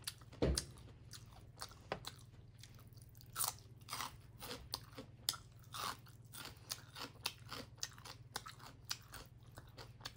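Chewing and mouth smacking of someone eating finger-millet dhindo and mustard greens by hand: many short clicks and smacks, several a second, over a low steady hum.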